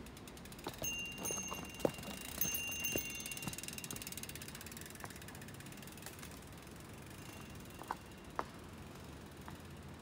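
Mountain bike's rear freehub ticking rapidly as the bike is pushed along, the clicking fading out after about four seconds. A few sharp knocks, the loudest about two seconds in, from the bike and shoes on rock.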